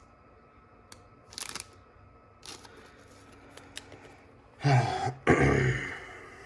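Light rustling and clicks of a plastic card sleeve as a trading card is slid into it, then a person coughs twice about five seconds in, the loudest sound here.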